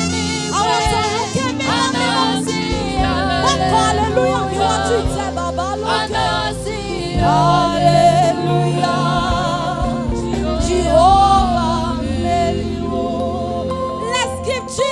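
Gospel worship music: singing with a choir over instrumental backing.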